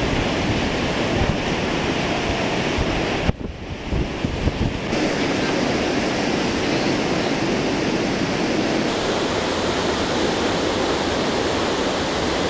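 Gullfoss waterfall on the Hvítá river: a steady, heavy rush of falling water, with wind buffeting the microphone. About three seconds in, the sound drops out and thins briefly, then returns at full strength.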